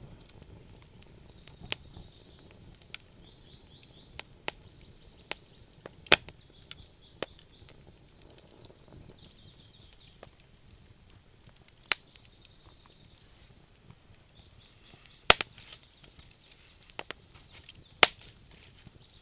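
Wood fire crackling in a fireplace, with sharp pops at irregular intervals, a few of them much louder than the rest.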